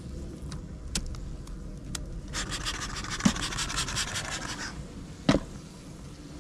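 Scraping and rubbing on a wooden beehive box for about two seconds, with a few light clicks before it and a sharp knock near the end.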